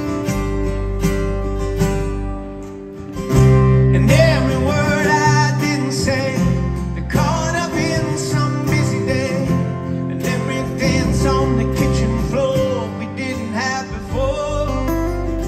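Live band playing a slow song, with strummed acoustic guitars and bass guitar. After a brief quieter moment the band swells and a male lead voice starts singing about four seconds in.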